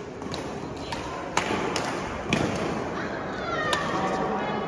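Badminton racket strikes on a shuttlecock in a rally: about five sharp cracks, the loudest about a second and a half in, with a dull thud about two and a half seconds in, against the echoing din of a sports hall.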